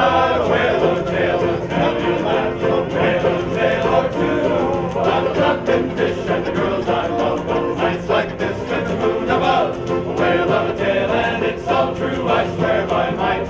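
A group of voices singing a nautical folk song together, with instrumental backing.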